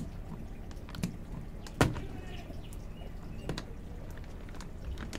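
A few sharp clicks and light plastic rustling as the knotted top of a plastic fish shipping bag is handled, with the loudest click just under two seconds in.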